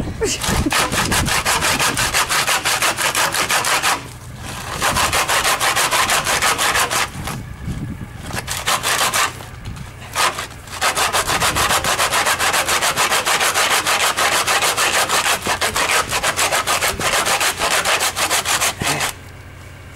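Hand saw cutting through a beef head's bone in fast back-and-forth strokes. It pauses briefly about 4 and 10 seconds in and stops near the end.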